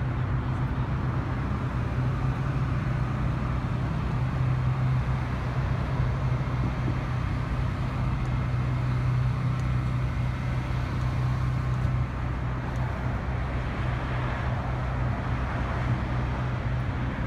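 Steady low drone of an engine running at idle, unchanging throughout.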